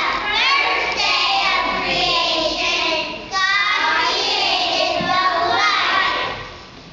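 A class of kindergarten children singing a song together, with a brief pause about three seconds in; the singing stops near the end.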